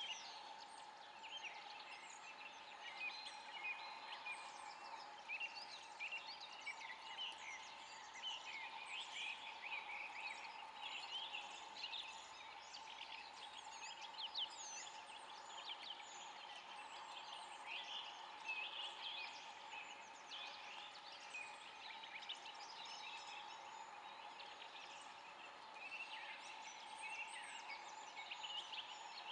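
Eurasian beaver gnawing bark off a stick: a fast, irregular run of small crisp scraping crackles from its incisors, over a steady faint drone.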